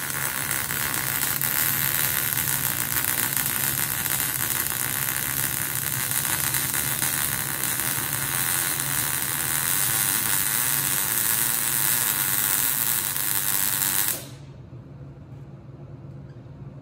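MIG (gas metal arc) welder laying a simple bead with .035 wire under 75/25 shielding gas on 1/8-inch plate: the arc crackles steadily and evenly for about fourteen seconds, then cuts off abruptly as the gun's trigger is released, leaving only a low hum.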